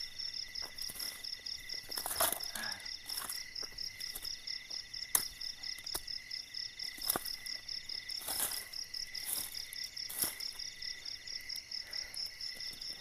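Night insects chirping in a rapid, even high pulse over a steadier high drone. Now and then dry leaves and bamboo litter rustle and snap as the ground is cleared by hand.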